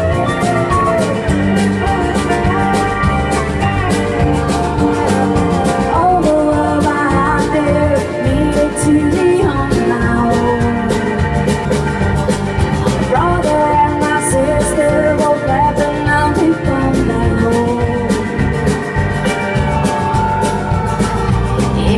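Live band playing a song: a drum kit keeps a steady beat under sustained guitar lines with some gliding notes.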